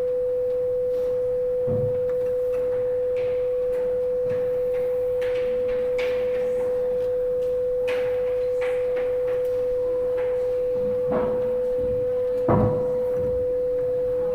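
A continuous, steady, pure electronic tone held at one pitch without a break, with a few soft knocks under it, the last two near the end.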